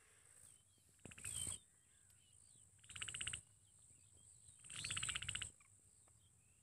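Faint bird chirps, with three short rattling trills about two seconds apart.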